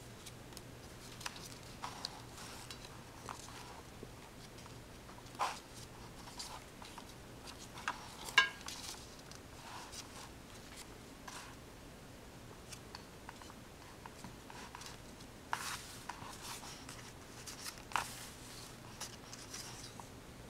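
Scattered light clicks and taps over a faint steady low hum, with a few sharper clicks, the loudest about eight seconds in.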